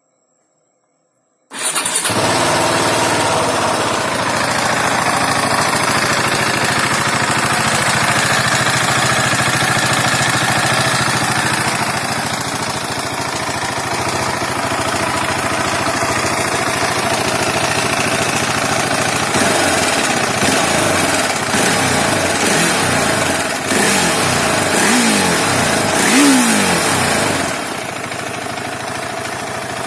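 A 2017 KTM 690 Duke's single-cylinder engine, breathing through its stock exhaust, starts abruptly about a second and a half in and idles steadily. In the later part it is given several short throttle blips, its pitch rising and falling, before settling back to a slightly quieter idle near the end.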